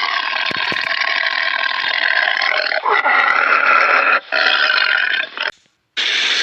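An animal's drawn-out, rasping calls in several segments that start and stop abruptly, the last followed by a short silence before a different sound begins near the end.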